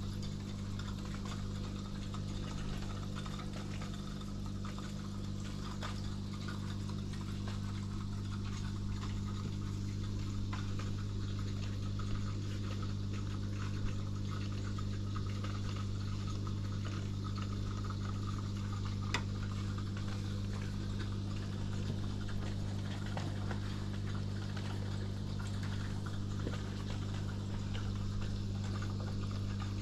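Aquarium pump humming steadily over the trickle and bubbling of tank water, with a few faint ticks about midway.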